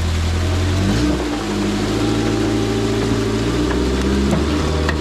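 Off-road rock crawler's engine running at low revs, its note changing with the throttle about a second in. A couple of sharp clicks near the end.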